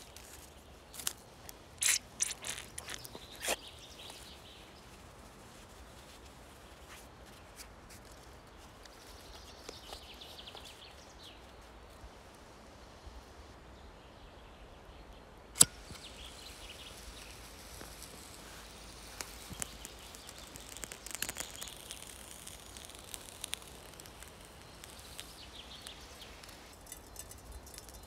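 A handful of sharp metallic clicks and taps as a knife point is worked against a tin can lid, then a quiet outdoor background with one sharp click about halfway through and scattered light crackles later on.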